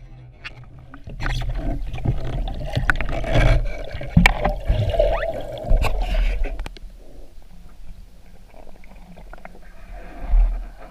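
Water splashing and sloshing, with scattered knocks, for about six seconds, then quieter.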